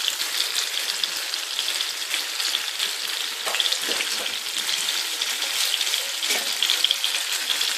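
Chilli-marinated fish pieces shallow-frying in a little oil in a flat frying pan: a steady sizzle with fine, dense crackling.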